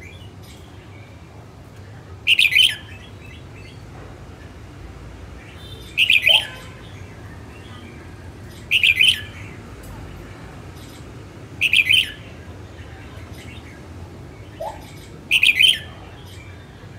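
Red-whiskered bulbul singing five short, loud phrases, each about half a second long and three to four seconds apart, with a couple of faint lower chirps between them.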